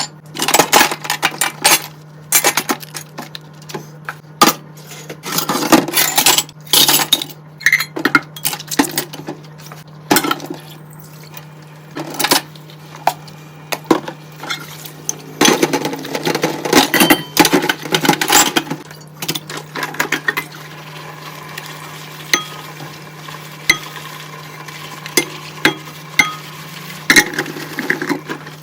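Dishes, cutlery and pans clattering and clinking as they are handled in a kitchen sink, in quick irregular knocks, over a steady low hum.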